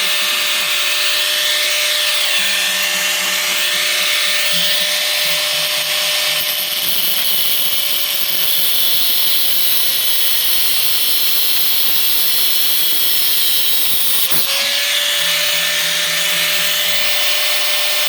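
Power grinder cutting, a steady loud hissing grind over the motor's whine. The motor's pitch sags slowly under load and picks back up with a click about fourteen seconds in.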